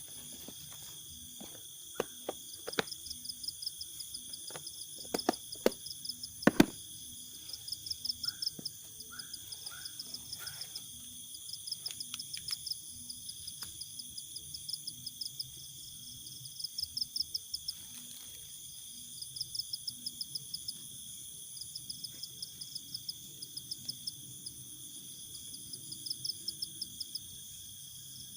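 Night insects, crickets among them, shrilling steadily, with trains of rapid chirps every few seconds. A scatter of sharp clicks and knocks comes in the first several seconds, the loudest about six seconds in.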